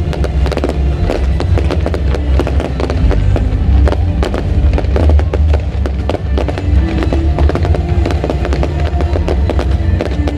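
Aerial fireworks going off in rapid, overlapping bangs and crackles, with music with a heavy bass playing throughout.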